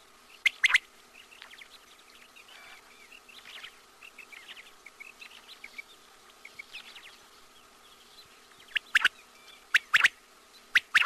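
Quail calling: sharp, short whistled notes in quick pairs, once about half a second in and again several times in the last two seconds, with softer scattered chirps between them over a faint steady hum.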